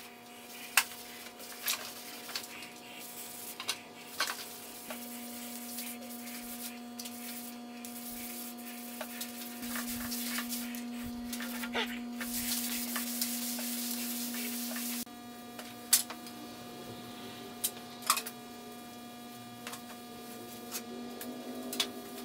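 Rag rubbing gel stain into an oak tabletop: soft wiping, loudest about ten to fifteen seconds in, with a few light knocks from handling. A steady hum runs underneath.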